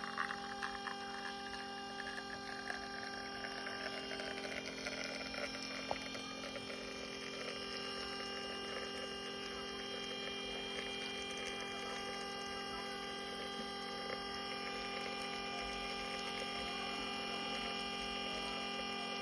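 York single-group espresso machine's pump humming steadily while it brews a shot, with a single click about six seconds in.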